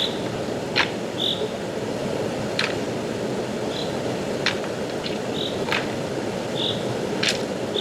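Stream water rushing steadily, with sharp crackles every second or two and a short high chirp repeating about every second and a half.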